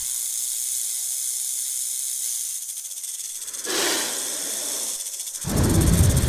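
Snake hissing, a sound effect for an animated giant snake: a long steady high hiss, a short louder hiss about four seconds in, then a louder, deeper hiss from about five and a half seconds in.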